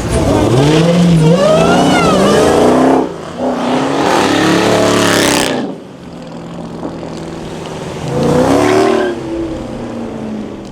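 Performance cars accelerating hard one after another as they drive off. The engine pitch climbs and drops back at each gear change. There are two loud pulls in the first half and a shorter rev about three-quarters of the way through.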